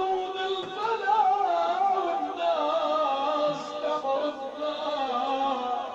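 Music: a voice singing a long, wavering, ornamented melody over instruments.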